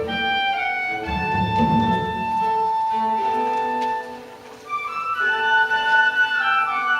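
Instrumental music led by violin and woodwinds, mostly long held notes. It drops away briefly about four seconds in, then comes back fuller.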